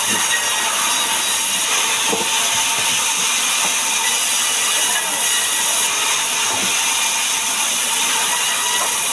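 Sawmill band saw ripping lengthwise through a log, its steel blade running steadily through the wood, most of the sound high-pitched.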